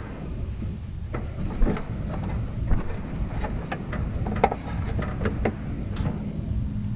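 Irregular clicks and rubbing of a wrench and socket turning a spark plug tight in an air-cooled Volkswagen engine.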